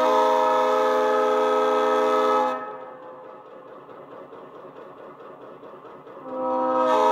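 TCS WOW Sound decoder in an HO-scale F7 B unit blowing its diesel air horn through twin Tang Band speakers: a steady multi-note chord held for about two and a half seconds, then stopping. The horn sounds again about six seconds in.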